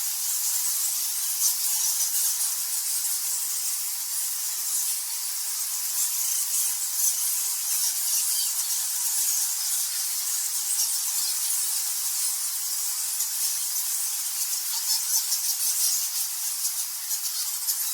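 A colony of bats squeaking and chittering together: a dense, unbroken stream of high-pitched chirps and ticks that holds steady throughout.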